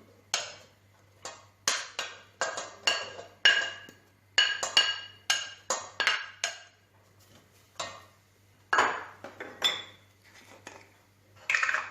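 A metal spoon scraping and knocking against a cooking pot while chopped onion is stirred into olive oil. There are about one or two strokes a second, some with a short metallic ring, and the strokes pause briefly twice.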